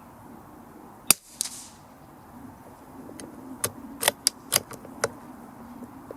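A single shot from a CZ457 .22LR bolt-action rifle firing CCI segmented hollow point subsonic ammunition: a short, sharp crack about a second in, then a softer noisy crack a moment later. Between about 3 and 5 seconds in, a quick run of about six metallic clicks as the bolt is worked to eject the case and chamber the next round.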